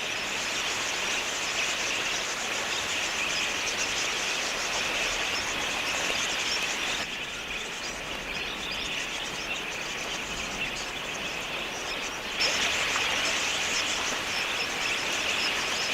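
A large flock of wild budgerigars chattering, a dense steady twittering. It turns thinner about seven seconds in and fuller again about twelve seconds in.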